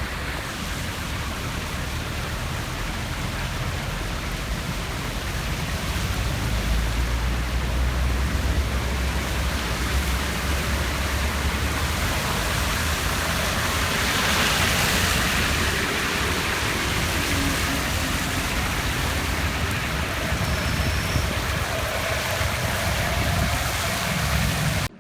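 Steady, loud rush of water during a heavy rainstorm, an even noise with no distinct events.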